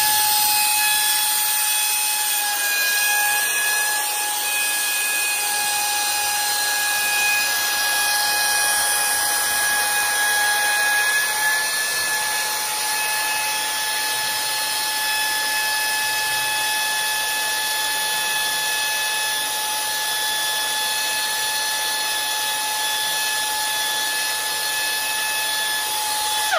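Hans 86110 3/4-inch drive twin-hammer air impact wrench running free with no load, a steady high whine over the hiss of its exhaust air, held at full speed. It shuts off at the very end.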